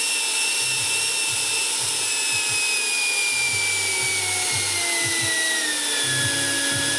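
The ducted fan of a radio-controlled MiG-15 model jet whining at part throttle. Its pitch falls steadily from about two seconds in to about six seconds in as the throttle is eased back, then holds steady at the lower pitch.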